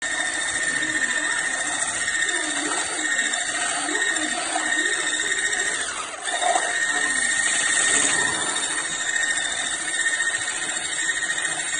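BSTY 500-watt electric hand blender running with its whisk attachment in a stainless steel bowl of eggs: a steady, high-pitched motor whine that dips briefly about six seconds in.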